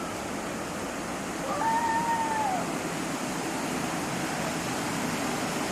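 Steady rush of river water flowing. About one and a half seconds in comes a single short high call that rises and falls.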